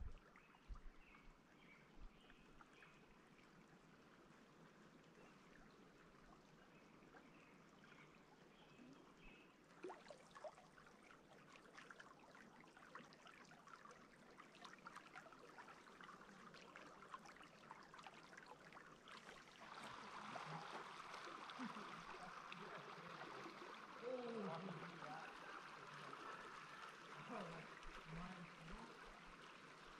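Faint, steady rush of a shallow mountain river flowing, growing a little louder about two-thirds of the way in. Faint voices come through near the end.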